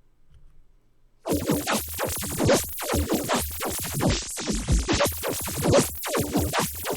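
Near silence for about a second, then an electronic loop played through a pitch-shifting and granular effect chain. It comes out as a dense, choppy spray of short glittery sound fragments reaching very high.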